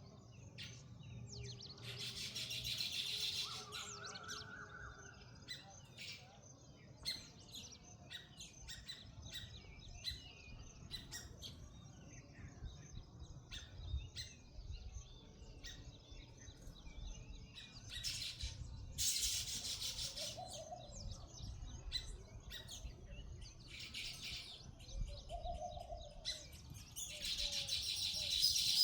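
Small birds chirping: many short, quick chirps throughout, with four louder, hissing noisy bursts lasting a second or two.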